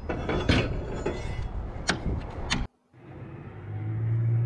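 Metal scrap clanking and rattling as it is moved around in a dumpster, a run of sharp knocks. After a short break, a steady low engine hum that grows louder near the end.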